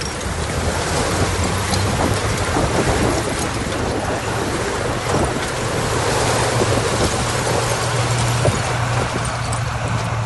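Heavy diesel earthmoving machinery running steadily under load, with a dense rushing, gravelly noise of soil and rock being moved over the engine drone.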